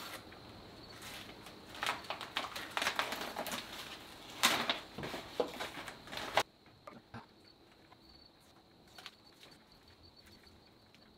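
Masking paper and tape crinkling and tearing as they are peeled off a truck grille and balled up by hand: a dense run of rustles that cuts off suddenly about six seconds in. After that only a few faint ticks are left.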